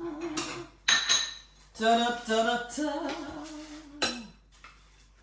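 A woman singing a short wordless tune, with a couple of sharp clinks of crockery about a second in as a crêpe is slid onto a china plate.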